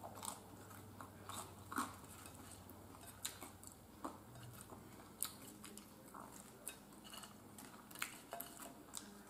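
Faint chewing and mouth smacks of someone eating air-fried chicken wings, with scattered soft clicks as the wings are picked up and handled.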